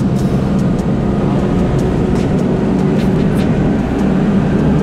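Charter fishing boat running at speed: a loud, steady engine drone with rushing wind and water noise over it.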